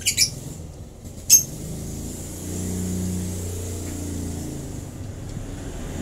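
African lovebird chicks giving short, high squeaks, once at the start and again just over a second in, while being hand-fed. A low steady hum runs underneath for about two seconds in the middle.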